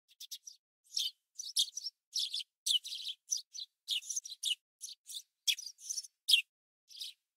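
Small bird chirping: a rapid string of short, high chirps, several a second.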